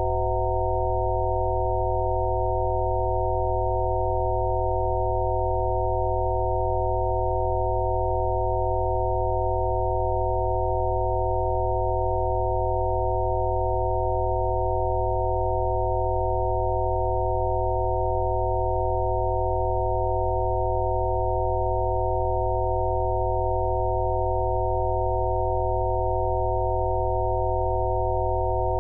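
Rife-frequency tones: several electronically generated sine tones sounding together as one steady, unchanging drone, with a low hum beneath.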